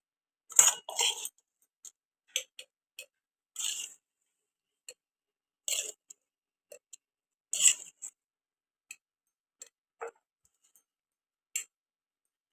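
A spoon scooping oily mango pickle and knocking against a jar as the jar is filled. There are a few louder scrapes and clinks, roughly every two seconds, with light clicks between them.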